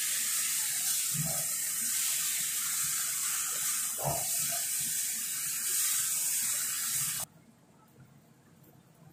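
Chicken, pineapple and vegetables sizzling in a pot over a gas flame while being stirred with a spatula, with a couple of soft knocks of the spatula against the pot. The sizzle cuts off suddenly about seven seconds in, leaving faint clicks.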